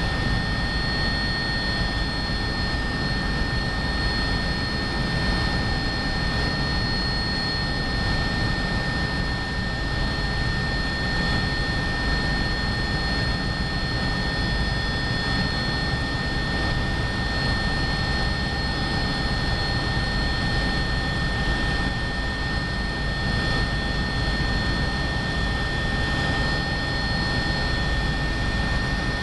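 Cabin noise inside an Agusta A109BA helicopter in flight: its twin turboshaft engines and rotor running steadily, a constant low rumble under a broad hiss, with a steady high whine.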